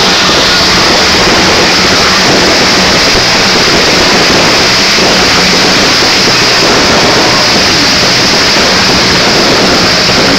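Fireworks display with ground fountains and aerial shells firing together: a loud, continuous roar of overlapping bangs and crackle with no gaps.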